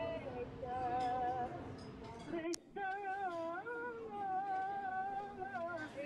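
Background music: a sung melody, the singer holding long, wavering notes with vibrato. A sharp click with a brief dropout comes about two and a half seconds in.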